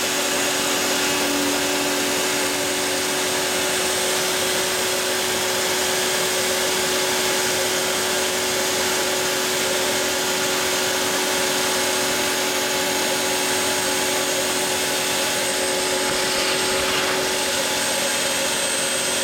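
Router spindle on a Mostly Printed CNC machine running steadily at high speed as the bit cuts an outline in fibreboard, a constant motor whine.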